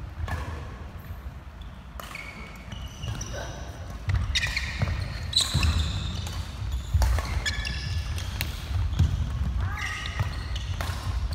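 Badminton doubles rally on a wooden court: a string of sharp racket hits on the shuttlecock, mixed with short high squeaks of court shoes on the floor.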